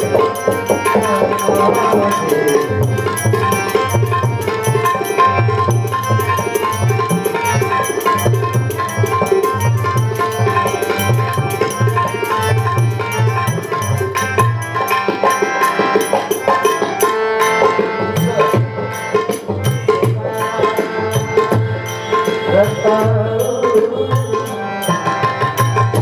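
Instrumental passage of Varkari bhajan music: a tabla-type hand drum keeps a steady, quick rhythm under held melodic tones, with bright rapid ticks of small cymbals on top.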